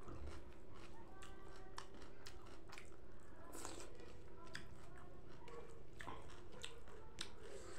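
Close-miked mukbang eating sounds: chewing with wet mouth smacks and clicks, several a second, as a person eats rice and salad by hand.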